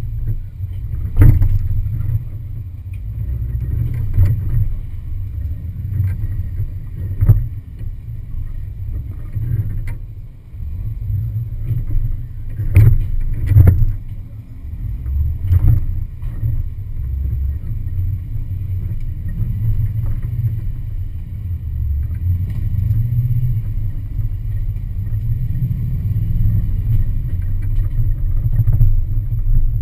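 Muffled low rumble of a 4x4 SUV crawling over a rocky off-road trail, picked up by a camera mounted on the vehicle, with irregular knocks and jolts as it lurches over rocks.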